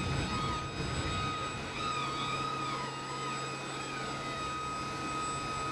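Steady high-pitched turbine whine from a parked CH-47 Chinook helicopter whose rotors are not yet turning, with a low steady hum that settles in about a second in.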